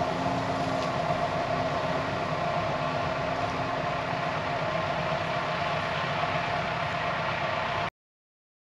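Heavy diesel machine engine running steadily: a constant drone with a steady tone in it, which cuts off suddenly near the end.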